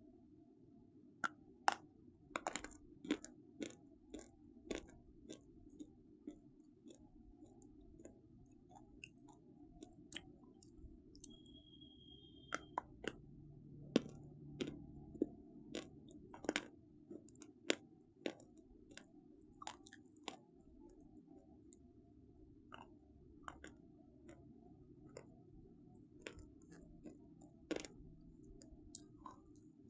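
Crunchy food being bitten and chewed close to the microphone: sharp, irregular crunches, thick in the first few seconds and again around the middle and scattered elsewhere, over a steady low hum.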